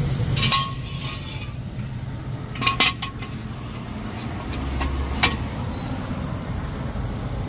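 A handful of short, light metallic clinks, a few seconds apart, over a steady low hum.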